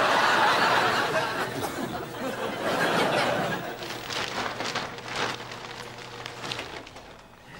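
Studio audience laughing in two waves, the first right at the start and a second about three seconds in. Crinkling plastic bin-bag rustles come in between and after.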